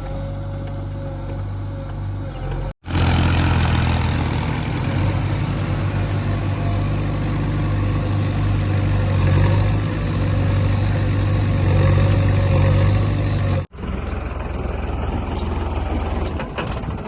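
Diesel engine of a JCB 3DX backhoe loader running steadily, its sound cut off abruptly twice, about three seconds in and again near the end, and louder between the two cuts.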